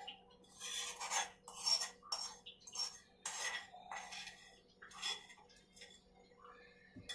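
A spoon scraping and clinking against the sides of a bowl while pickle is scooped into a jar: a quick run of about ten short scrapes, easing off near the end.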